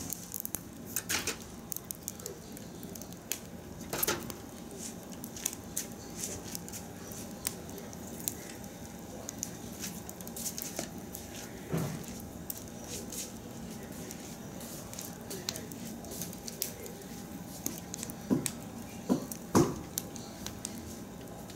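Wood fire burning in a metal drum, crackling with frequent small irregular pops and a few louder cracks, the loudest two near the end.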